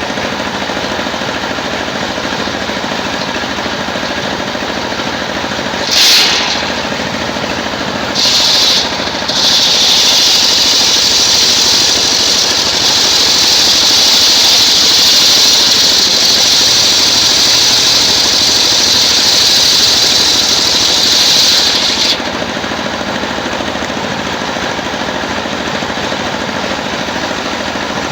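Engine-driven circular-saw sawmill running, its blade briefly biting into coconut wood twice, about six and eight seconds in. It then cuts steadily with a loud, high-pitched sawing noise for about thirteen seconds, which stops suddenly, leaving the engine running unloaded.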